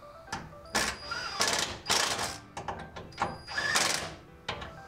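Cordless impact wrench hammering in several short bursts, each lasting a fraction of a second, as it runs bolts on a truck's rear suspension during a shock and spring install.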